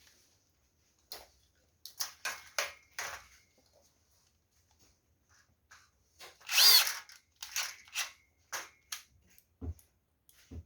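Hand work on parts: a series of short clicks and scrapes, with one louder burst lasting about half a second about two-thirds of the way through and two low thumps near the end.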